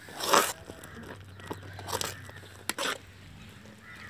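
Metal spatula scraping and stirring thick grated-beetroot halwa in a metal pot, in three rough strokes, the loudest about a quarter second in.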